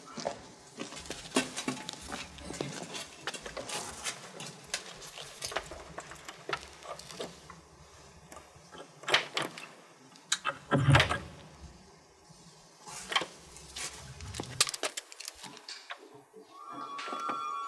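A run of small clicks, scrapes and knocks as a back door's lock is worked open, with a heavier dull thud about eleven seconds in. Soft music with held tones comes in near the end.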